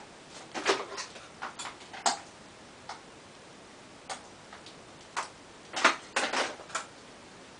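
A series of sharp, irregularly spaced clicks and ticks, some single and some in quick clusters.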